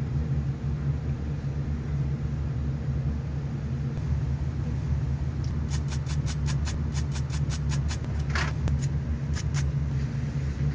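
Steady low hum of kitchen background noise. From about halfway in there is a run of quick, evenly spaced light clicks or scrapes, about four or five a second, lasting a few seconds.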